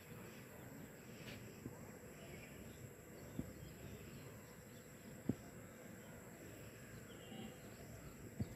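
Faint steady background noise with a thin, steady high whine, broken by a few short soft knocks, the sharpest just past halfway.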